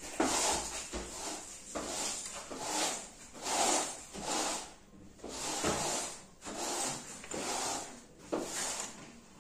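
Soft rubbing and scraping of fingers pressing and sliding the iPad 7's charging-port flex cable over the board's connector pads, in a string of short swells about one a second.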